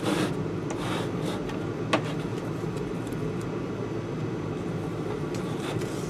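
Electrical tape being pulled off the roll and wrapped around loose wire ends: short tearing, rasping pulls at the start and about a second in, a sharp click about two seconds in. A steady low hum runs underneath.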